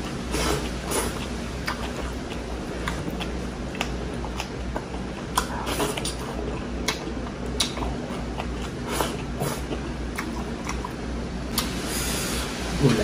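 Close-up eating sounds of a person eating rice and beef soup by hand: irregular wet chewing and lip smacks, over a steady low hum. Near the end, a wooden spoon knocks in a glass bowl of soup.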